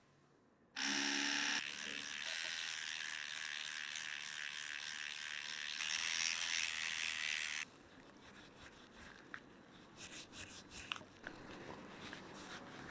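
Electric toothbrush with a round oscillating head switched on about a second in, buzzing steadily as its bristles scrub the inside of a brass cup, then cut off abruptly past the middle. Fainter rubbing and small scuffs follow.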